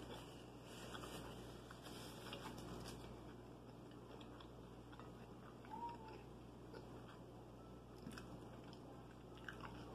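Faint eating and handling sounds over a steady low electrical hum: soft chewing and mouth noises, and a paper napkin rustling as hands are wiped. A brief, soft, high-pitched sound comes about six seconds in.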